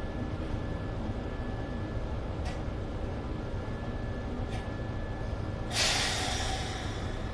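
Inside a Mercedes city bus: steady engine and road rumble with two faint clicks. Near the end comes a sudden sharp burst of compressed-air hiss, a pneumatic air release, that fades away over about a second.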